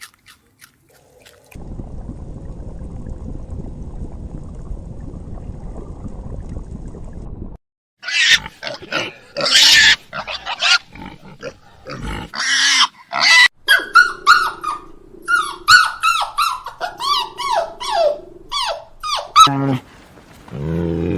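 Pigs calling: a low, steady rumbling grunt for about six seconds, then, after a short break, a fast run of short calls, many with falling pitch.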